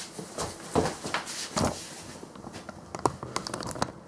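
Scattered knocks, taps and crackling rustles of objects being handled, with a few stronger knocks in the first two seconds and a quick run of small ticks near the end.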